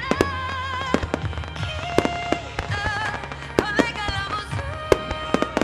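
Fireworks going off: a string of sharp bangs and crackles, several a second and uneven, over music with a held, wavering melody.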